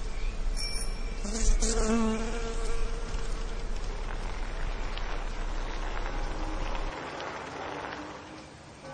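Insects buzzing steadily in a constant haze of sound, over a low steady hum that stops about seven seconds in. A short, louder pitched sound rises out of it about one and a half seconds in, and the buzzing fades somewhat near the end.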